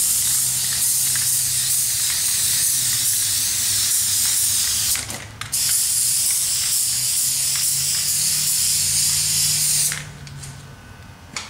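Aerosol spray-paint can spraying in two long bursts of hiss, the first about five seconds long, then a short break, then a second of about four seconds that stops about ten seconds in.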